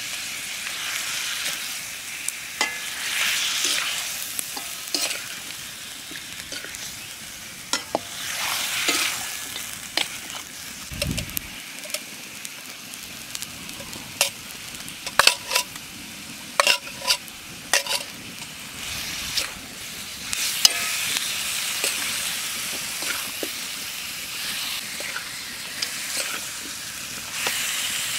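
Food sizzling and frying in a pot while being stirred, with a metal spoon clinking sharply against the pot many times, most densely in the middle.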